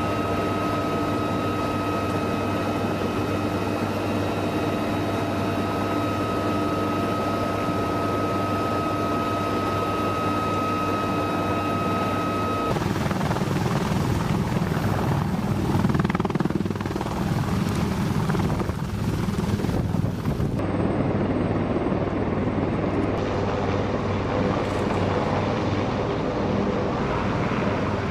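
UH-1Y Venom helicopter's turboshaft engines and rotor running. For the first dozen seconds it is heard from inside the cabin as a steady whine over the rotor noise. After a cut about thirteen seconds in, it is heard from outside as rougher, unsteady rotor and engine noise with no steady whine.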